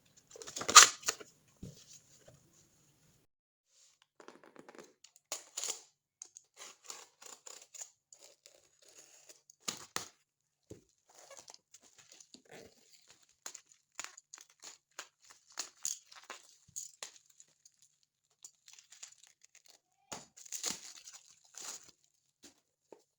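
Book packaging being torn open and crinkled by hand, in short scattered rustling bursts, the loudest about a second in.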